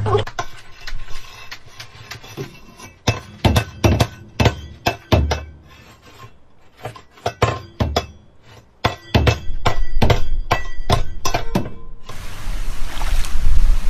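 Irregular sharp knocks and clicks of a parrot banging and tapping a hard object on a tiled floor, some single and some in quick runs. About twelve seconds in they give way to a steady wash of water.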